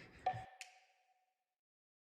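Closing bars of light percussive background music: a last mallet-struck note rings out briefly, with a click just after it, as the music stops about half a second in.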